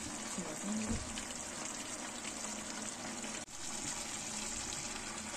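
Chicken pieces frying in oil and masala in a steel kadai, a steady sizzle that breaks off for an instant about three and a half seconds in.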